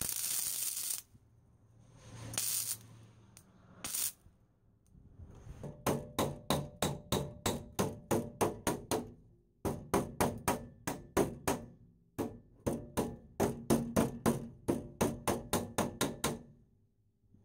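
MIG welder making short tack welds on the steel bulkhead of a Land Rover: one about a second long, then two briefer ones. A hammer then taps the welded steel panel in quick runs of about three blows a second, each blow ringing.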